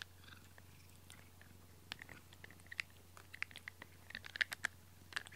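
A cat biting and chewing on the bristles of a pink rubber grooming brush, heard as a run of quick, irregular clicks. The clicks start about two seconds in and come thickest near the end.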